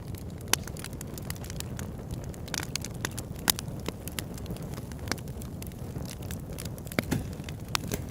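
Campfire crackling, with irregular sharp pops and snaps from the burning wood over a steady low rush of flame.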